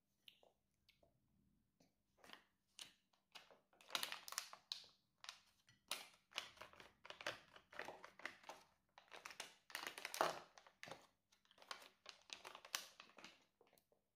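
A plastic baby-food squeeze pouch crinkling as a baby handles it: irregular crackles in clusters, starting about two seconds in and dying away shortly before the end.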